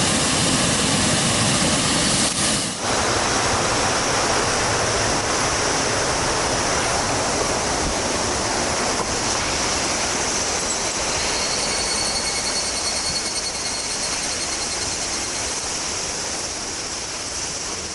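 River water rushing and splashing over rocks, a steady noise that dips briefly about three seconds in. A faint thin high tone joins it in the last third.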